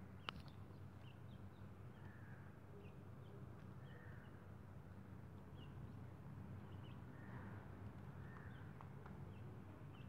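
Faint, short, high cheeps from young grey francolins, repeated at irregular intervals, over a low steady hum. A single sharp click comes about a third of a second in.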